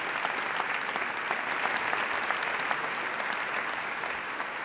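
Audience applauding: many hands clapping together in a dense, steady sound.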